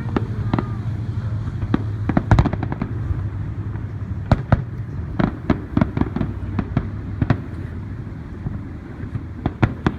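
Fireworks going off: many sharp pops and cracks at irregular intervals, with a dense cluster about two seconds in. A steady low hum runs underneath.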